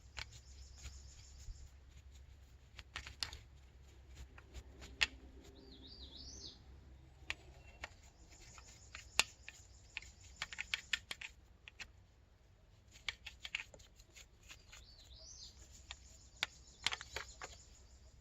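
Scattered light clicks and knocks from hands working on a bicycle, with a few short hissy scrubbing or wiping sounds. A bird chirps briefly twice in the background.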